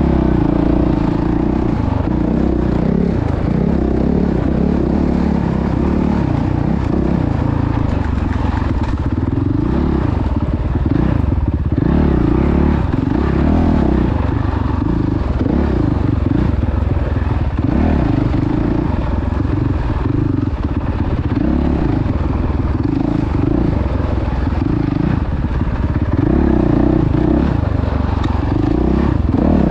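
Off-road vehicle engine running continuously while being driven, its pitch rising and falling over and over with the throttle.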